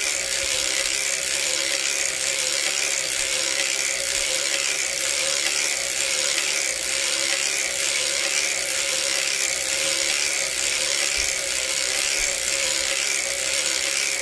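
Hand-cranked circular sock knitting machine (Erlbacher Gearhart Speedster) running steadily in the round, its latch needles clattering up and down through the cam as it knits the sock leg.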